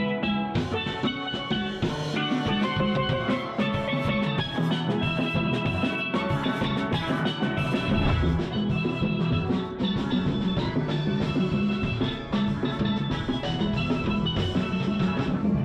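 Steel band playing: many steel pans ringing out a melody and chords over a steady drum beat.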